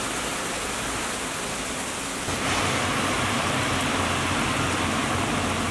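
Heavy rain pouring down, a dense steady hiss. About two seconds in it gets louder and fuller, with a low rumble of traffic on the flooded street beneath it.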